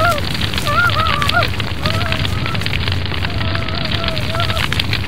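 Dry grass burning with a steady rushing crackle, and short, high, wavering cries heard over it again and again.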